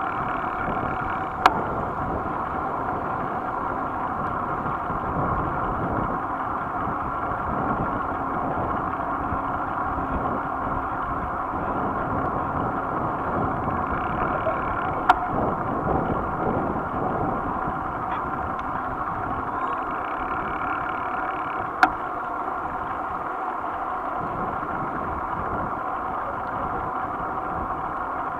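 Steady, muffled road and wind noise of a bicycle rolling along asphalt, with three sharp clicks: about a second and a half in, around the middle, and about two thirds of the way through.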